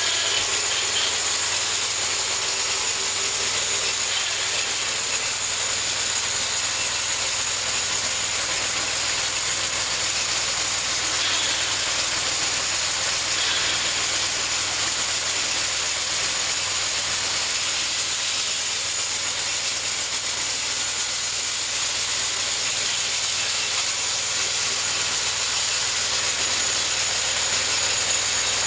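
Homemade bandsaw mill running steadily, its blade sawing through a cherry log: an even hissing noise with a steady high-pitched whine over it.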